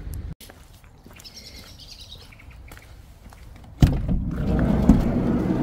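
Van door being opened: a sharp clunk about four seconds in as the latch releases, then a rumbling scrape as the door moves.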